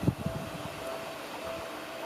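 Electric commuter train running past a level crossing. The rumble eases just after a loud stretch, and a steady tone from the crossing alarm comes and goes over it.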